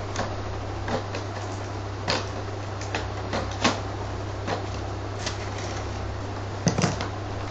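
Hands handling plastic toy packaging and a box: scattered light clicks and taps, with a quick cluster of louder knocks near the end as the box is lifted and moved. A steady low hum runs underneath.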